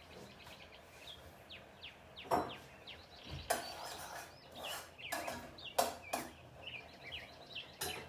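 Small birds chirping in quick, short repeated calls, with a spoon clinking sharply against a ceramic mug several times as it is stirred, loudest between about two and six seconds in.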